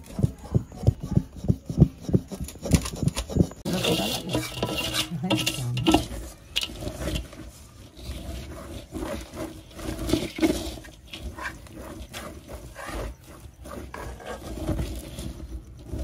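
A spatula stirring and scraping thick boiled sugarcane jaggery in a metal pan, in regular strokes about two or three a second for the first few seconds, then slower, uneven scraping and utensil clatter.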